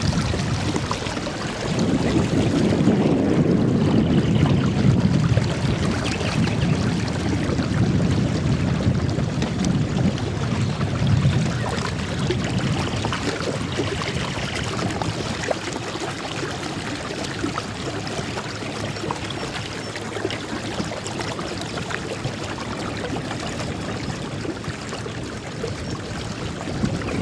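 Water lapping and splashing against the hull of a small fishing boat, a steady watery wash with a low rumble that is louder in the first half and eases off about halfway through.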